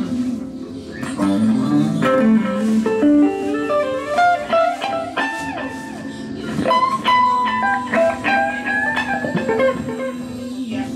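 Electric guitar played solo in fast runs of single notes, lead-guitar style, with a steady low note sounding under parts of it.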